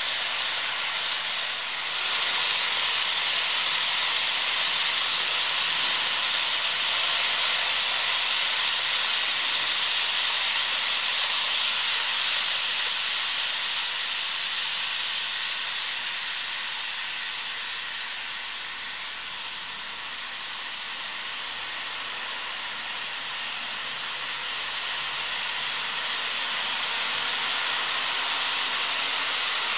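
HO scale model freight trains running on sectional track: a steady hiss of small metal wheels on the rails and the locomotive motors. It fades somewhat around the middle and builds again near the end as a train approaches.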